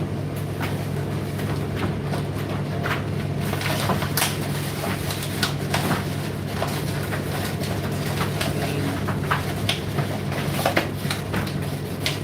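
Indesit IDC8T3 condenser tumble dryer running: a steady low hum from the motor and turning drum, with irregular light knocks and clicks.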